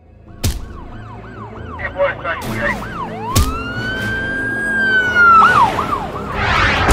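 Cartoon police car siren: a fast up-and-down yelp, then one long rising wail held for about two seconds, then the fast yelp again. Two sharp knocks, at about half a second and three and a half seconds in, come over a low vehicle rumble, and a rush of noise rises near the end.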